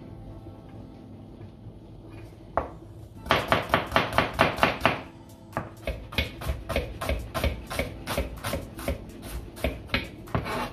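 Kitchen knife dicing an onion on a cutting board: a single chop about two and a half seconds in, then a fast, loud run of knife taps on the board at about six a second, followed by a steadier, lighter run at about four a second.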